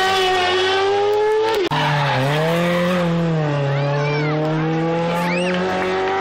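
Rally car engines running at high revs, the pitch falling and rising as the cars brake and accelerate through a hairpin, with a sudden break a little under two seconds in where one car gives way to the next. Short high tyre squeals are heard in the middle.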